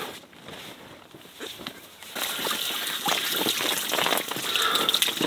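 Water spraying from a battery-powered Zodi portable shower pump and splashing onto a person and into the buckets below. There are scattered splashes at first, and the spray is steadier and louder from about two seconds in.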